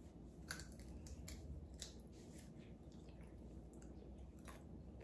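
Close-up chewing of crunchy air-fried pig's ear: a run of crisp crunches in the first two seconds, softer chewing, then another crunch near the end.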